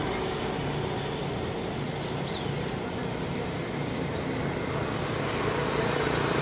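Steady engine hum, with a run of quick high falling chirps, bird-like, from about one and a half to three and a half seconds in.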